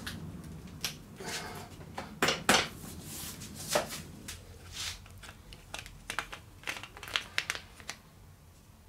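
Handling knocks and clicks of a folding e-bike's seat post being pushed into place by hand, loudest about two to four seconds in, then lighter, quicker clicks in the second half as a folding pedal is worked.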